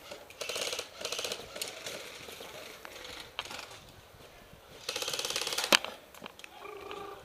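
Airsoft rifle giving several bursts of fast, ratcheting mechanical clicks. The loudest burst is about five seconds in and ends in a sharp click.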